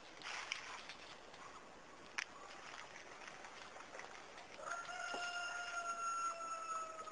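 A rooster crowing: one long, nearly level crow that starts over halfway through and falls slightly in pitch. A single sharp click is heard about two seconds in.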